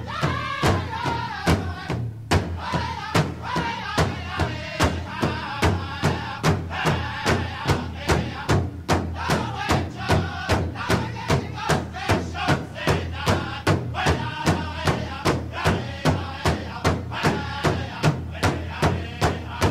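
Pow wow style music: a steady drumbeat of about two and a half beats a second under chanted group singing.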